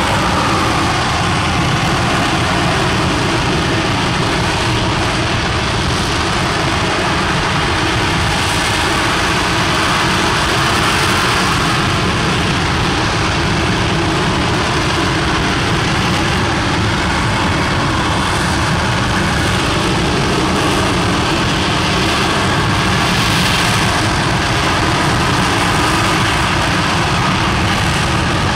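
Aerojet Rocketdyne RS-25 liquid-hydrogen/liquid-oxygen rocket engine firing on a test stand: a loud, steady roar that does not let up.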